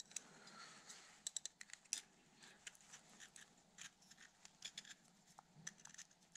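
Faint, irregular clicks and light scraping of a steel pick tool prying at a piston ring that is stuck in its groove on a 125 cc pit bike piston.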